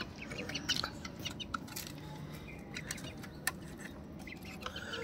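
Pigeons moving and pecking in a wire-mesh cage: faint scattered clicks and rustles, with a few short, faint bird chirps.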